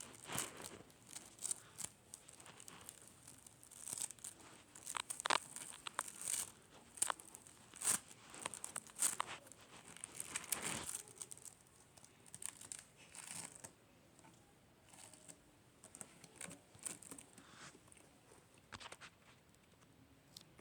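Hands squishing and stretching slime: irregular crackling and popping clicks, busiest in the first half and thinning out toward the end.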